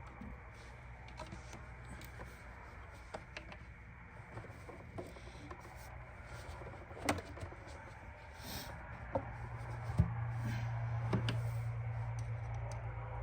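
Scattered clicks, knocks and light scraping of hand work in an engine bay as an intake tube and its hose clamps are refitted. A steady low hum grows louder about ten seconds in.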